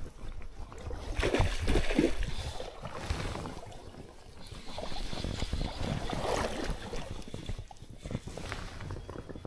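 Water sloshing around the legs of someone wading in a shallow stream, swelling about a second in and again about five seconds in.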